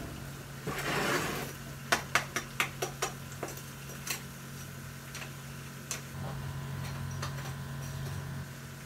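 Metal oven rack and roasting pan being handled at an open oven: a brief slide about a second in, then a quick run of clinks and knocks, with a few more later, over a low steady hum.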